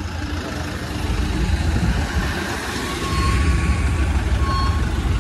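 Highway traffic heard from a moving vehicle: a steady low rumble of road and wind noise on the microphone as heavy goods trucks pass close by.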